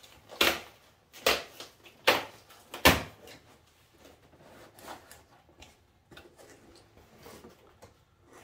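A long cardboard shipping box being opened by hand: four sharp cardboard knocks or snaps at an even pace, about one every 0.8 s, then quieter rustling and small taps as the flaps and contents are handled.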